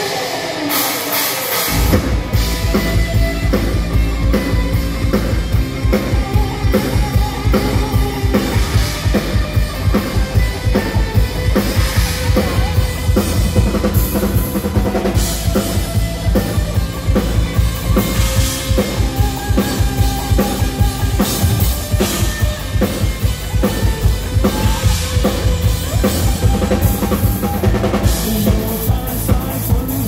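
Rock band playing an instrumental passage without vocals: a full drum kit with a steady kick-drum beat comes in about two seconds in, over a heavy bass line and sustained instrument tones.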